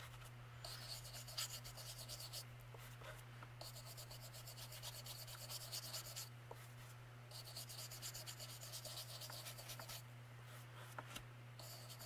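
Faint scratchy rubbing of a hand ink-blending tool worked over a small wooden cutout on paper, in spells of a couple of seconds with short pauses between, over a steady low hum.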